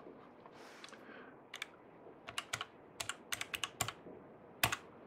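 Plastic keys of a Canon TX-1210E desktop calculator pressed in a quick series of about a dozen clicks as a number is keyed in and multiplied, with one louder key press near the end. A brief pen stroke on paper comes just before, about a second in.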